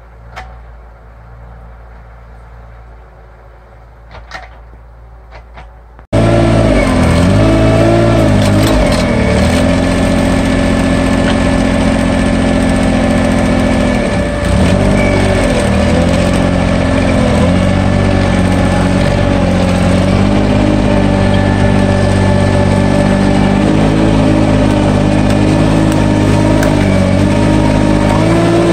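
Small engine of a mini dumper running close up, its pitch dipping and rising as it works under load hauling dirt. It starts suddenly about six seconds in, after a few seconds of quieter low hum with a couple of small knocks.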